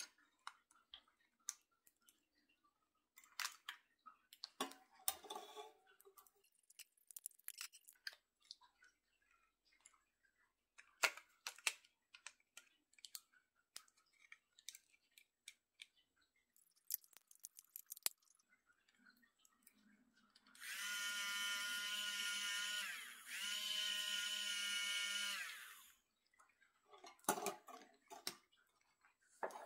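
Zulay Kitchen handheld milk frother's small battery motor whirring at a steady high pitch in two runs of about two and a half seconds each, with a brief break between. Before it come scattered clicks and taps as batteries are fitted into its handle.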